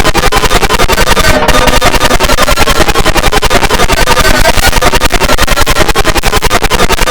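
Loud, heavily distorted electronic emergency alert alarm tones, remixed and chopped into a fast, continuous stutter, with several tones sounding at once.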